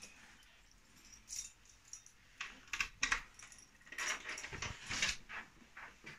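A handful of light clicks and knocks, scattered and close together between about one and five seconds in, over faint room noise.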